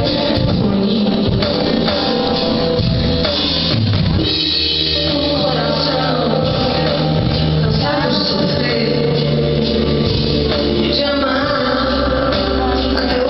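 Live pop-rock band playing with drum kit and bass while a woman sings, recorded from the audience with a muffled, bass-heavy sound.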